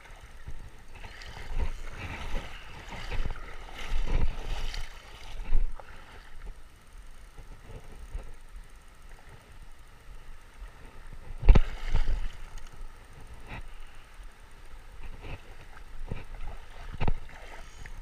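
River water gurgling and sloshing around a wading angler. Irregular knocks and bumps come from close handling of the fishing rod and reel: a noisier stretch with several thumps in the first few seconds, and one sharp knock about eleven seconds in.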